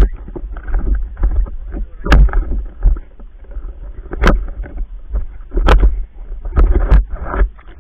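Water sloshing and splashing close to the camera as a spearfisher wades and handles fish on a spear, with a steady low rumble and several sharp knocks and clicks every second or two.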